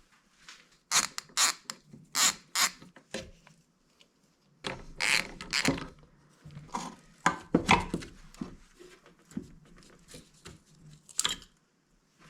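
Metal engine parts and hand tools clinking and knocking as they are handled: a dozen or so separate sharp knocks, most of them close together in the middle, with one more near the end.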